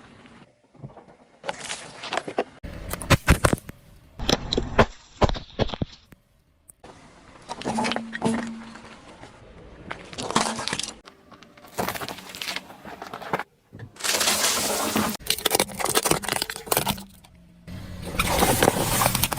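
A car's tyres rolling over and crushing objects: several separate bursts of crunching, cracking and popping with many sharp clicks. The longest and loudest burst comes about two-thirds through, and another comes near the end.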